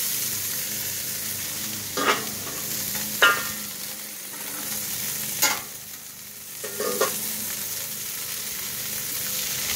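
Hamburger patties sizzling on a homemade steel griddle top, a steady high hiss as their fat renders out. Several sharp metal clanks and scrapes cut in from a spatula and a stainless dome lid being handled on the griddle.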